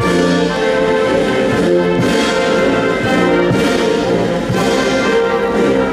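Military brass band playing, with a regular beat.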